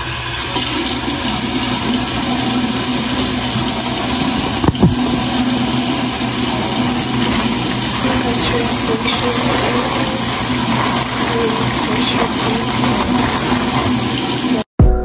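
Bathroom sink tap running, a loud steady rush of water with a faint hum under it, cutting off abruptly near the end.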